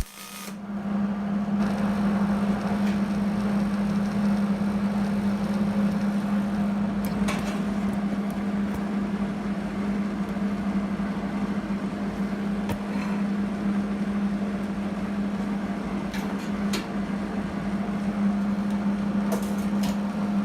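Steady machine hum on one unchanging pitch, building up over the first second or two and then holding even, with a few faint clicks.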